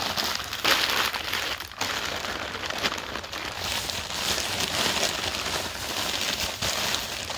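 A plastic shopping bag crinkling and rustling continuously as items are rummaged out of it by hand.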